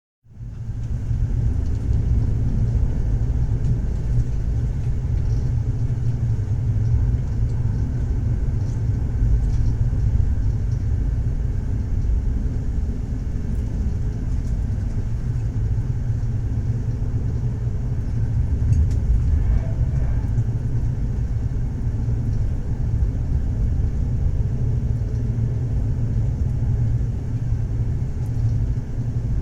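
Train running along the track, a steady low rumble as heard from inside a carriage, fading in at the start.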